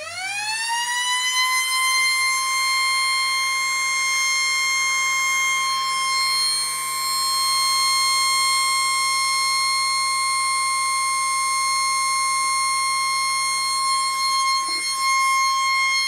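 3D-printed resin tornado siren, its rotor spun by a brushless miniquad motor, on a low-throttle smoke test. Its pitch climbs over the first second or two, then holds a steady, loud wail.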